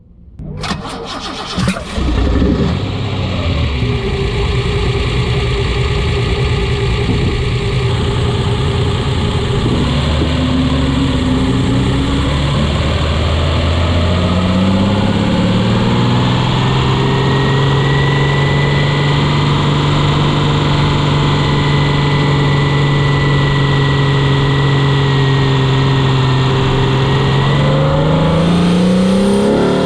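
Intake induction sound of a modified 3.0-litre Alfa Romeo GTV6 V6: the engine starts up about two seconds in and runs low, then the revs climb about halfway through and hold steady under way, rising again near the end.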